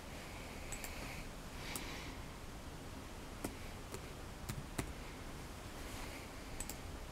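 Scattered key presses on an HP laptop keyboard: a handful of separate soft clicks spread through the stretch, over a low background hiss.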